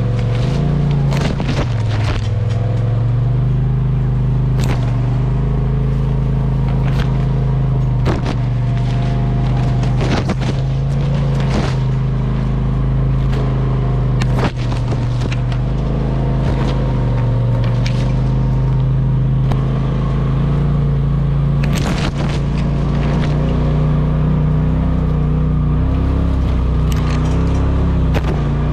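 Polaris RZR Pro XP 4 side-by-side's turbocharged twin-cylinder engine running at a fairly steady speed that rises and falls a little while driving, with scattered sharp knocks and scrapes from the machine working over rough trail.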